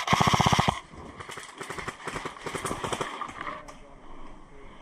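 An airsoft electric rifle firing a rapid full-auto burst that stops about three-quarters of a second in, followed by scattered quieter shots and BB snaps for a couple of seconds.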